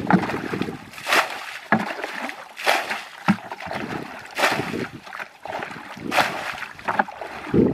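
Muddy water sloshing and splashing as a plastic bucket is scooped through a shallow ditch and thrown out, about every second and a half: the ditch is being bailed out by hand.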